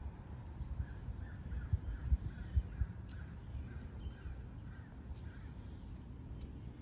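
Wind rumbling and gusting on the microphone, with a few heavier buffets in the first few seconds. Over it a bird calls a quick run of about a dozen short notes, roughly three a second, from about a second in until about five seconds in, with fainter high chirps of other birds.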